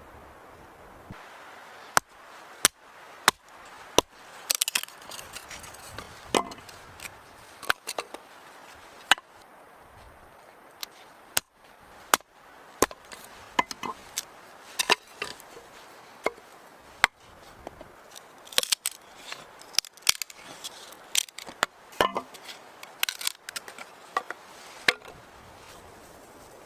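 Wood being chopped: sharp, separate blows at an irregular pace, some in quick clusters.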